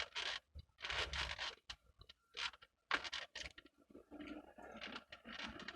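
Close-up chewing and crunching of food by a person eating, in a run of separate bites and chews.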